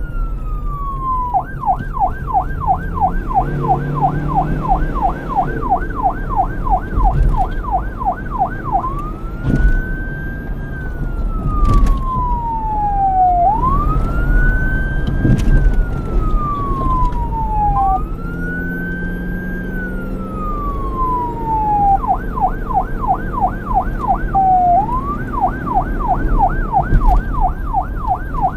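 Police car electronic siren alternating between a fast yelp, about three to four warbles a second, and a slow wail that rises quickly and falls over about four seconds. It yelps for the first third or so, wails through the middle, then switches back to the yelp. A low rumble runs underneath.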